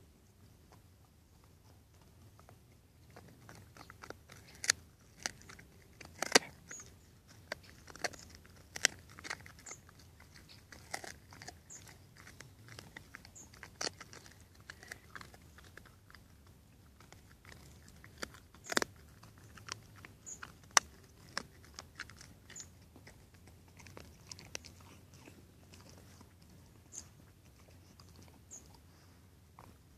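Dog gnawing a bone: irregular sharp cracks and crunches of teeth on bone with chewing in between. The loudest cracks come about six seconds in and again around nineteen and twenty-one seconds.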